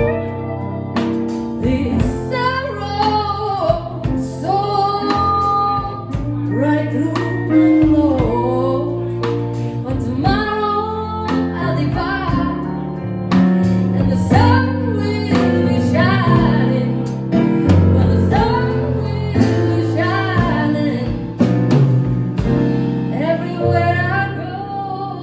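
Live blues band playing: electric guitar, organ, electric piano and a drum kit together, with a wavering lead melody over the band.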